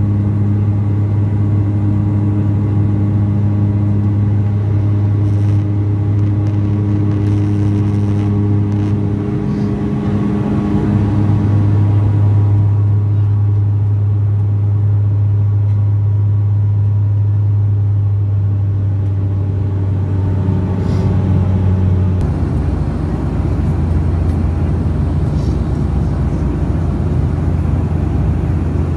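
Cabin drone of a turboprop airliner in flight: a loud, steady hum with a strong low propeller tone and its overtones over engine and airflow rumble. The tone drops slightly and the rumble grows broader about two-thirds of the way through.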